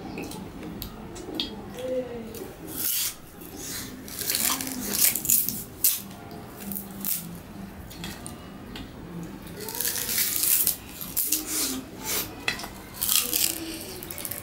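Raw sugarcane being bitten and chewed: irregular crunches and cracks as the tough rind is torn off with the teeth and the fibrous stalk is chewed, thickest around four to six seconds in and again in the last few seconds.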